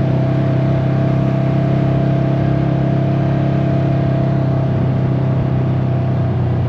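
Off-road machine's engine running steadily at a constant cruising speed while riding, an even hum with no change in pitch.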